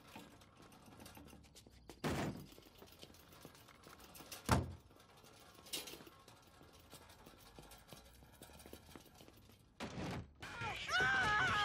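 A few separate dull thumps over quiet background, the loudest about four and a half seconds in, then a voice near the end.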